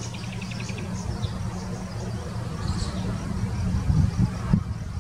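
Outdoor background: a steady low rumble with a few louder low thumps about four seconds in, under faint high chirping and a short rapid trill at the start.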